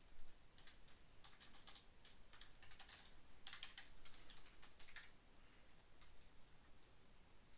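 Computer keyboard typing: faint, quick keystroke clicks in short clusters, stopping after about five seconds.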